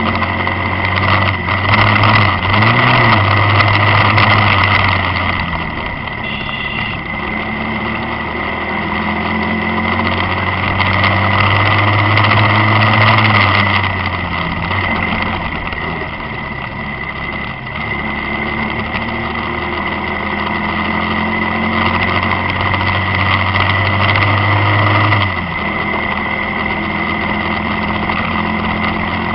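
Motorcycle engine running on the move under wind and road noise, its low note rising and falling three times as the rider opens and eases the throttle.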